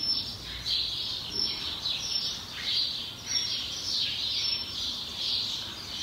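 Birds chirping: a string of short, high-pitched calls repeating every half second or so.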